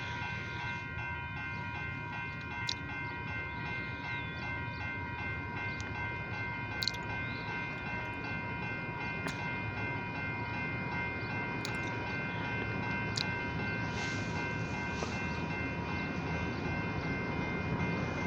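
Railroad grade-crossing bell ringing steadily, a cluster of bright unchanging tones, as the crossing signals are activated ahead of an approaching train. Under it a low rumble slowly grows louder, and a few sharp clicks are scattered through.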